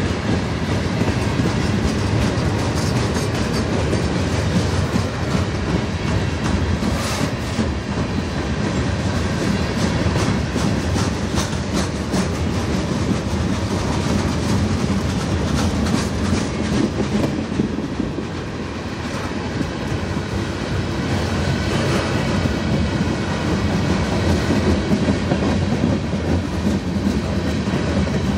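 A mixed freight train's cars rolling steadily past: a continuous rumble of steel wheels on rail, with clicks as the wheels cross rail joints.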